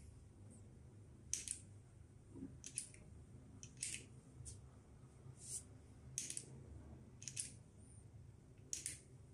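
Short, sharp ticks, about one a second, as a jumper wire is tapped on and off the terminals of a lithium power-tool battery pack that will not charge. The tapping links it to a good pack to raise its voltage and wake its protection circuit.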